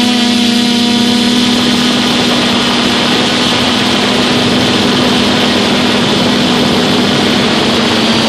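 DJI F450 quadcopter's brushless motors and propellers running steadily, heard very close from a phone carried on the airframe: a loud buzzing hum with a higher whine above it over the hiss of the prop wash.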